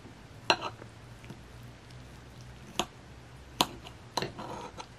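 Kitchen knife cutting into a cooked kabocha squash stuffed with melted cheese and egg: four sharp clicks of the blade, the loudest about half a second in and midway through, with a soft crackle near the end.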